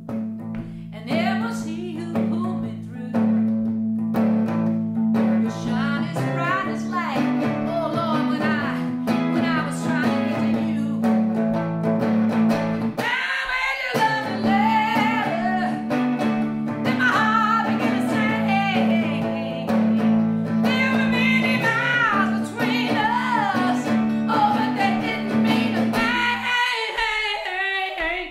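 A woman singing a blues song and accompanying herself on a hollow-body archtop electric guitar. The low guitar notes drop out briefly about halfway through and again near the end, leaving the voice and higher strums.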